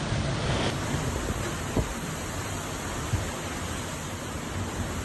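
Hurricane-force wind and heavy rain: a steady rushing noise, with a couple of brief low thumps.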